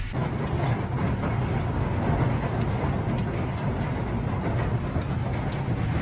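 Heavy hailstorm downpour: a dense, steady rush of rain and hail with a low rumble and a few faint sharp ticks.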